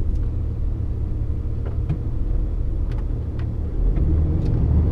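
DAF CF lorry's diesel engine running with a steady low rumble, a few faint clicks over it; it grows a little louder nearly four seconds in.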